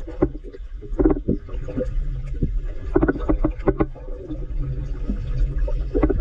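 Water sloshing and splashing close to the microphone, in irregular bursts every half second to a second, over a steady low rumble.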